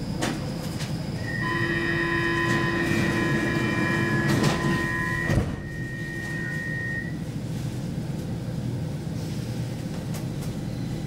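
Stockholm Metro C20 train at a platform: a steady electronic door-closing warning tone holds for about four seconds, then the sliding doors shut with a thump about five seconds in. A steady train rumble runs underneath.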